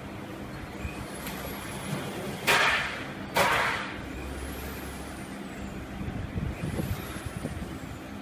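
High-frequency PVC welding machine: two sharp hisses of compressed air about a second apart, each fading within half a second, as its pneumatic press lets air out, over a steady electrical hum. A few light knocks follow near the end.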